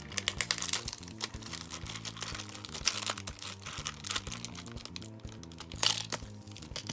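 Plastic packaging crinkling and crackling in quick, irregular bursts as a figure's display stand is unwrapped, heaviest in the first second and again a little before the end.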